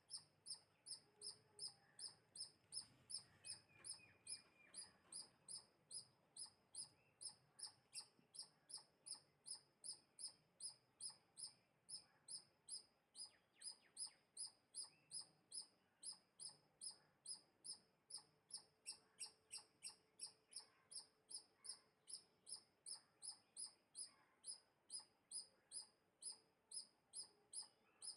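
Faint high chirps repeated at an even pace, about two and a half a second, from a small animal.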